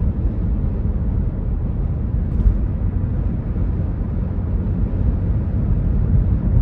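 Steady low rumble of a car driving at highway speed: road, tyre and engine noise as heard from inside the moving car.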